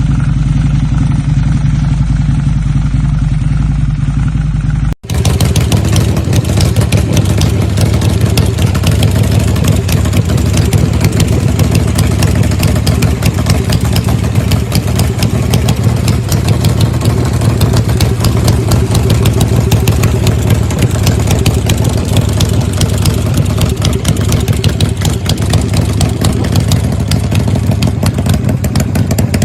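Harley-Davidson V-twin motorcycle engines running loud and steady. About five seconds in there is an abrupt cut from one bike to another, which runs with a fast, rough pulsing.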